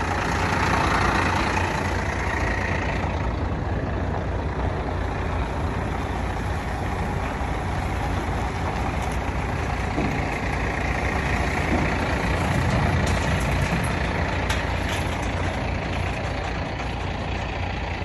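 Pickup truck engine running steadily as a dually pickup towing a trailer drives slowly past and away.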